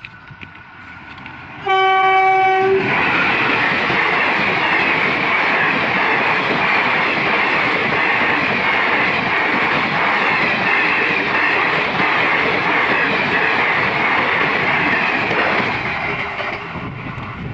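An Indian Railways express train's locomotive horn sounds once, briefly, about two seconds in, and the train then passes at speed with a loud, steady rush of wheels on the track that falls away near the end.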